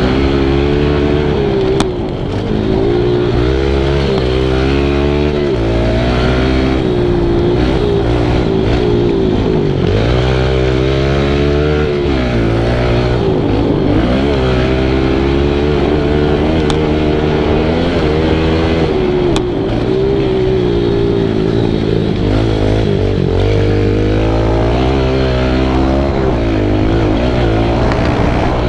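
Kawasaki KLX110's small single-cylinder four-stroke engine heard from on board while riding, revving up and falling back again and again as the throttle is opened and closed. There is a short dip about two seconds in.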